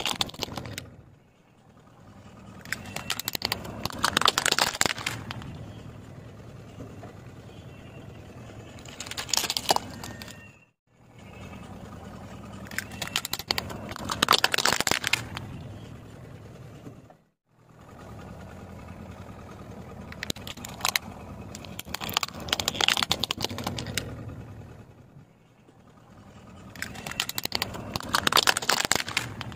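Car tyre rolling slowly over small plastic toys on asphalt, crushing them with bursts of sharp cracking and crackling of breaking plastic over the car's low rumble. This happens several times, with short breaks between takes.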